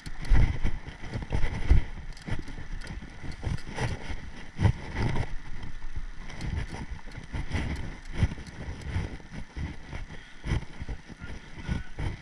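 Mountain bike riding over a rough dirt trail: irregular thumps, knocks and rattles from bumps under the wheels, over a steady rolling and wind noise.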